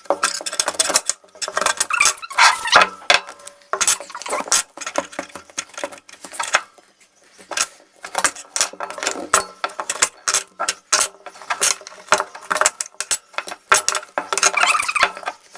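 Cutlery and dishes clinking and scraping in quick, irregular taps during food preparation.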